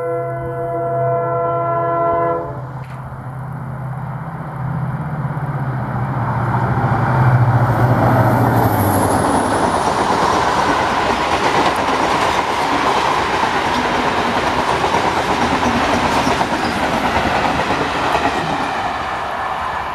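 WDG4 diesel-electric locomotive, with its EMD two-stroke engine, sounding its horn in one long blast that cuts off about two and a half seconds in. The engine's low drone rises in pitch as the locomotive passes close. After that, a long rake of tank wagons rolls by with steady wheel-on-rail rumble and clatter.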